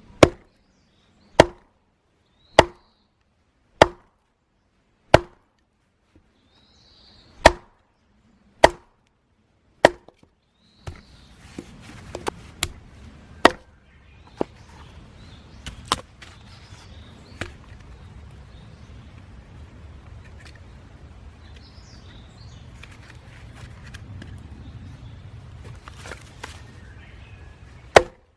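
Hatchet chopping red pine into small splits: eight sharp, regular blows about every second and a quarter, then lighter, irregular knocks, then a long stretch of low steady rumble, with a single hard blow again near the end.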